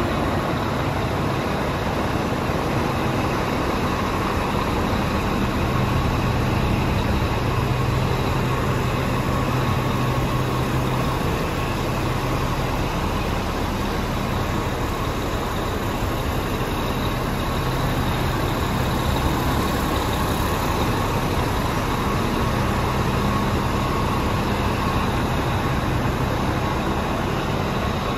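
Scania R420 tractor unit's 420 hp turbocharged straight-six diesel engine idling steadily.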